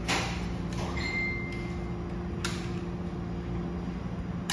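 Steady low machine hum, with a sharp click at the start, a brief high squeak or ping about a second in, and another click or two later.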